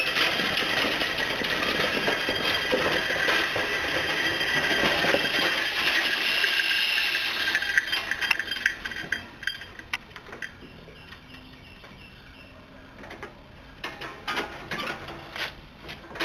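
Compressed-air engine on a small home-built air-powered vehicle running loudly with a steady high tone, dying away about eight to ten seconds in as the vehicle stops. Then a few scattered metal clinks and knocks near the end.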